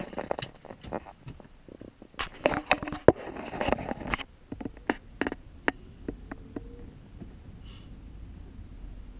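Irregular sharp clicks and knocks, dense at first and thinning out about six seconds in, followed by a low steady rumble.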